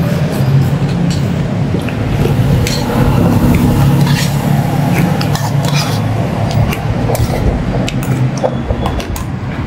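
Metal fork clinking and scraping against a plastic bowl and plate as a man eats, many short light clicks over a steady low background rumble.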